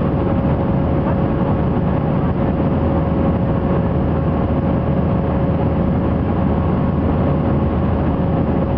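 Steady cabin noise inside an Airbus A319 in flight, heard from a window seat over the wing: the drone of the jet engines and the rush of air over the fuselage, with a steady mid-pitched hum running through it.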